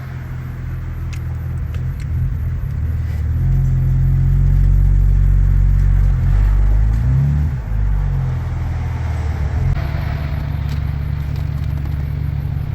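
A 2011 BMW 328i's engine running at idle, getting louder for a few seconds in the middle with a brief rise in pitch before settling back.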